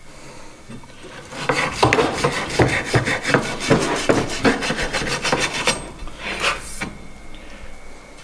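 Rhythmic hand scraping on the cut end of a copper pipe as its inside burr is reamed away before soldering, about two to three rasping strokes a second, pausing near the end.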